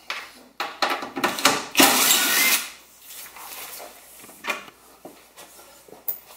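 Cordless DeWalt impact driver running in one burst of just under a second, backing out a trim fastener, amid clicks and knocks of handling.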